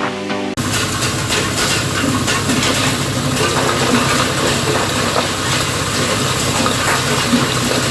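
Soil grinding machine running, with a dense rattle of many small clicks over a steady machine hum, as hard soil is crushed. Brief background music at the very start cuts off abruptly.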